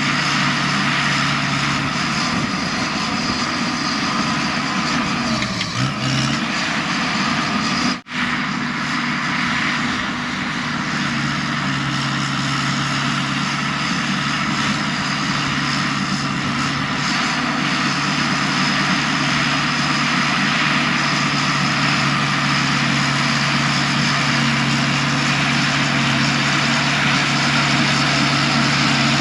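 Heavy earthmoving machine's diesel engine running steadily under work. Its pitch dips briefly about six seconds in, and the sound cuts out for an instant about two seconds later.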